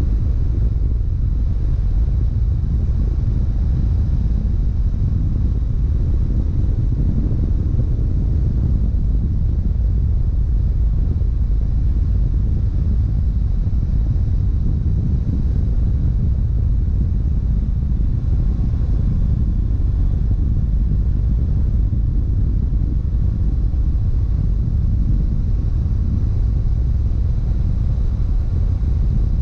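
BMW F700GS motorcycle cruising at a steady speed: a continuous low rumble of its parallel-twin engine mixed with wind and road noise, with no revving or gear changes.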